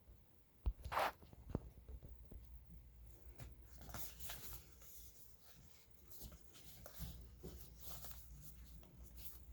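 Packaging being handled during an unboxing: a sharp knock about a second in, then repeated short scrapes and rustles of box parts and wrapping sliding and being moved.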